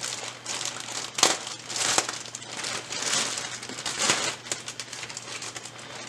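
Clear plastic parts bag crinkling and rustling as it is handled and opened, in uneven crackles, sharpest about one and two seconds in.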